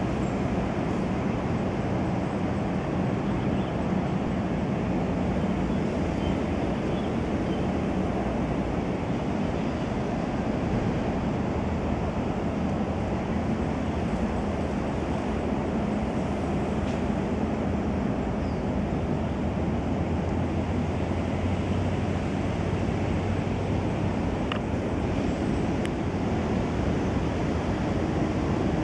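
Steady low rumble of outdoor background noise with a faint hum underneath, unchanging throughout.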